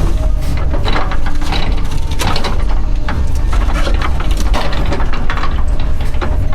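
Doosan DX140 excavator's diesel engine running hard under load, heard from inside the cab, with repeated sharp cracks and snaps of wood as the tree and its roots are wrenched out.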